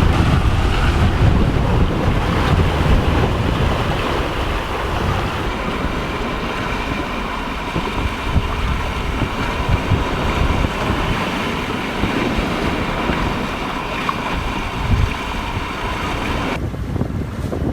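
Wind buffeting the microphone and water rushing past the hull of a sailboat under sail with its engine off, as a steady, gusty rush. Near the end the higher hiss drops away abruptly.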